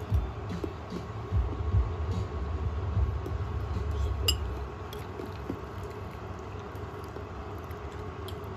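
Metal spoon clinking and scraping against a ceramic soup bowl as it scoops through soup, with a few sharp clinks, the brightest about four seconds in. Soft low handling thumps and a faint steady hum lie underneath.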